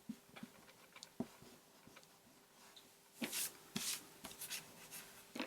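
Rubber eraser rubbing pencil lines off paper: a few faint taps, then several short scrubbing strokes from about three seconds in.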